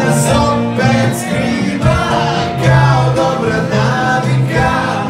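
Live rock band playing through a club PA: electric guitars and bass over drums.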